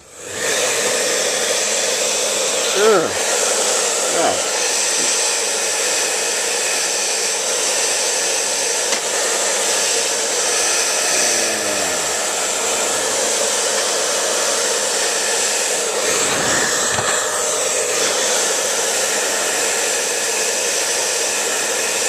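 Hand-held hair dryer switching on just at the start, then running steadily with an even whir, its air blast aimed into a dusty desktop computer case to blow the dust out.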